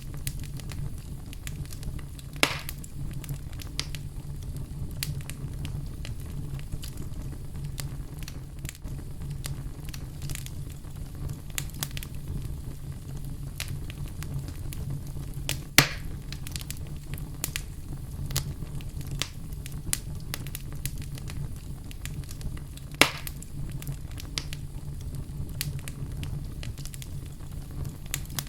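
Wood fire in a fireplace crackling steadily, with a low rumble under many small irregular crackles and three louder pops, about two and a half seconds in, near the middle and near the end.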